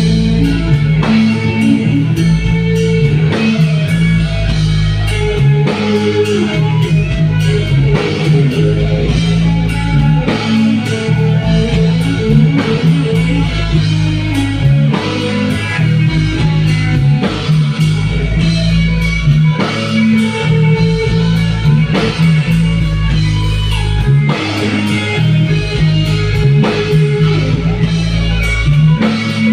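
Live rock band playing loudly: electric guitar over bass guitar and drum kit, held low notes shifting every second or so.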